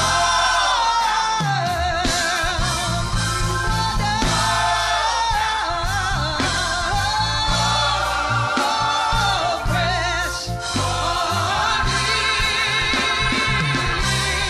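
Gospel choir singing live with band accompaniment, a lead vocalist's voice wavering with vibrato over the choir.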